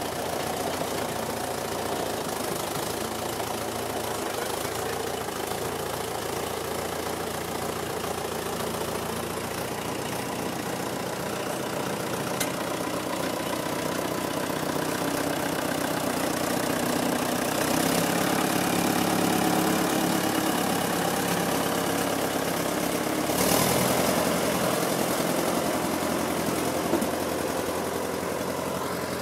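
The twin Fordson Super Major four-cylinder diesel engines of a Doe Triple-D tractor running steadily, newly revived after 30 years laid up in a barn. The engine sound grows a little louder past the middle and swells briefly near the end as the tractor is driven off.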